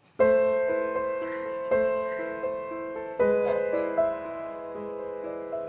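Slow background piano music: sustained chords, a new one struck about every second and a half.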